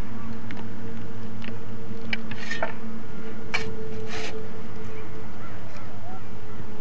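A spade scraping into a pile of soil and tossing it, in a few short scrapes about two to four seconds in, over a steady low hum.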